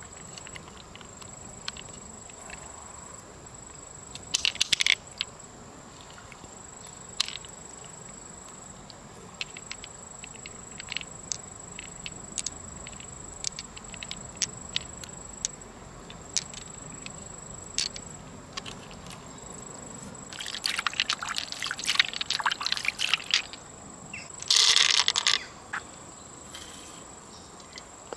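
Hands working through the wet flesh of a giant freshwater mussel, with scattered light clicks of pearls knocking against each other and the shell. There are louder spells of wet handling noise about twenty seconds in and a short loud burst about twenty-five seconds in, over a steady high insect drone.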